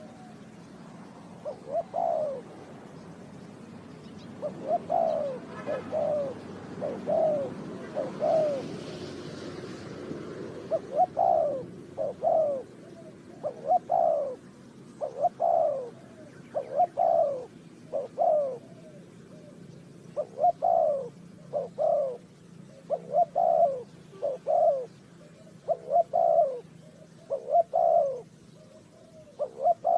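Spotted dove cooing: a long run of short coos, each falling in pitch, repeated about once a second in phrases with brief pauses between them.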